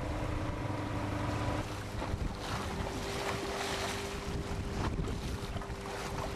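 Fishing canoe's engine running steadily under way, with water rushing past the hull and wind on the microphone; the engine hum changes pitch about a second and a half in.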